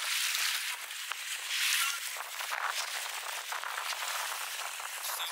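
Sea water splashing and hissing alongside a boat, with an irregular crackle of spray from a hooked barracuda thrashing at the surface.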